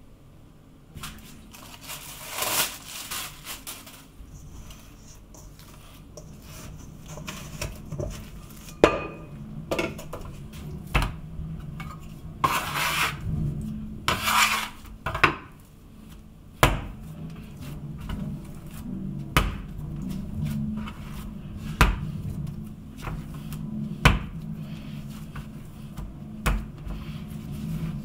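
Neapolitan pizza dough being kneaded by hand on a wooden cutting board: dull knocks every few seconds as the dough is pushed and turned against the board, with a few stretches of rustling and scraping.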